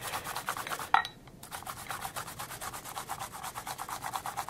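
Daikon radish being grated on a fine ginger-and-daikon grater: quick, even rasping strokes, about eight a second. They break off briefly about a second in, with a click.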